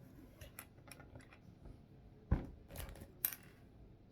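Plastic Lego pieces clicking and clattering as they are handled and pressed together: a run of small clicks, then a sharper knock about two seconds in and two brief rattles after it.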